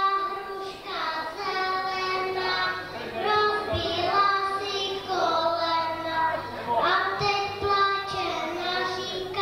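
A small boy singing a children's song into a handheld microphone, in held notes that step from pitch to pitch.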